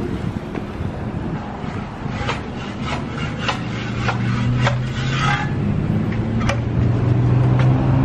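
Footsteps on pavement at a walking pace, about one every 0.6 s, over low wind rumble on the microphone. A steady low hum comes in about halfway through and grows louder toward the end.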